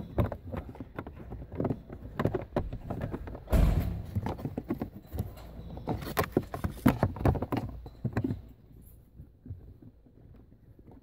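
Hands working the plastic pollen-filter cover and trim under a car's dashboard: irregular knocks, clicks and scrapes of plastic, with a louder bump about three and a half seconds in. The handling dies down to faint rustles after about eight seconds.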